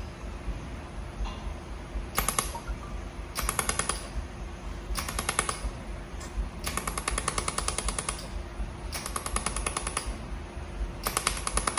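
Pulsed laser mould welding machine firing in bursts: six runs of rapid, sharp ticks, one tick per laser pulse, each run half a second to about a second and a half long, over a steady low hum.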